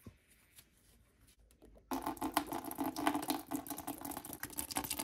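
A few faint clicks as the radiator's plastic drain plug is worked loose. Then, about two seconds in, engine coolant suddenly starts gushing out of the Honda ST1100's radiator drain hole in a steady, splashing pour.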